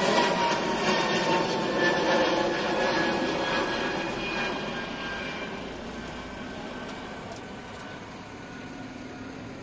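Embraer 195-E2 airliner's Pratt & Whitney geared turbofan engines climbing out after takeoff: a jet roar with a faint whine that slowly falls in pitch, fading steadily as the aircraft draws away.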